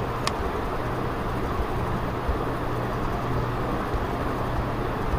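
Steady background noise in a small room: a constant low hum with hiss, and one sharp click shortly after the start.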